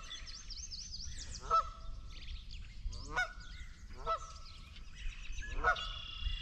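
A goose honking repeatedly, about five short calls roughly a second and a half apart, while small songbirds chirp high and continually in the background.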